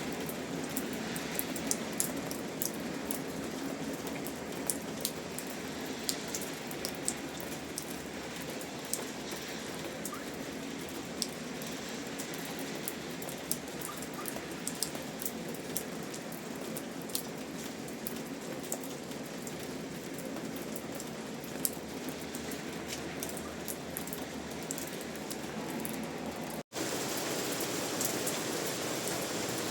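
Steady rain falling, with many sharp individual drops ticking on a surface. About 27 seconds in it cuts out for an instant, then carries on slightly louder.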